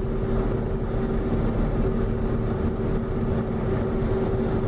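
John Deere 6620 combine running steadily while harvesting corn, heard from inside the cab: its diesel engine and threshing machinery make a constant hum with two held tones over a rumbling noise.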